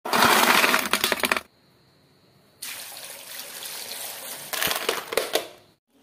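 Clam shells clattering and rattling against each other as they are washed in a perforated plastic basket, then water pouring steadily onto clams in a bowl, with more shell clacks near the end.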